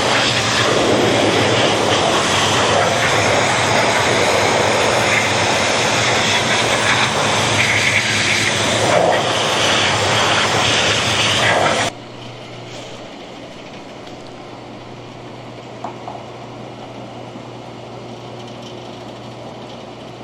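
Pressure washer spraying a conveyor belt: a loud, steady hiss of the high-pressure jet over the machine's running pump. It cuts off suddenly about twelve seconds in, leaving a quieter steady hum.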